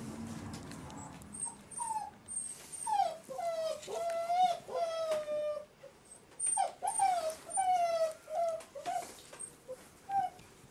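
Alaskan Malamute puppy whimpering and whining: a string of short, wavering cries in two bouts with a brief pause between them.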